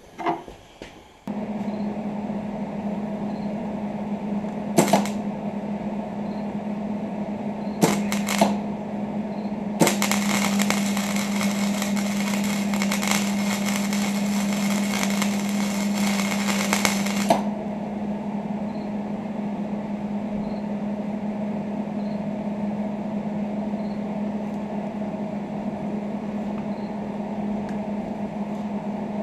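A metalworking power tool switches on and hums steadily. Two short bursts of crackle come first, then about eight seconds of continuous harsh crackling as it works on steel.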